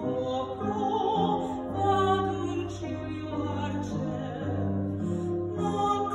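A woman singing an Italian art song in a classical, operatic voice, holding long notes over sustained instrumental accompaniment.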